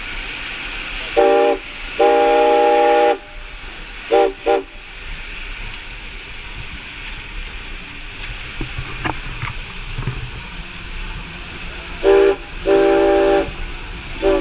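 Steam locomotive whistle blown in a series of blasts from the cab: a short blast, a long one and two quick short ones, then after a gap about eight seconds long another short, long and short. Under them the locomotive runs with a steady hiss and rumble.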